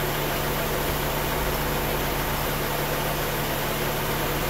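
Honda B18B1 engine idling with the A/C compressor engaged during refrigerant charging: a steady, even engine-bay hum and hiss with no distinct clicks.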